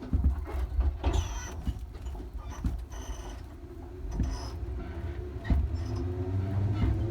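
Electric commuter train running, with a heavy low rumble and scattered knocks. From about six seconds in, a traction-motor whine rises in pitch as the train accelerates.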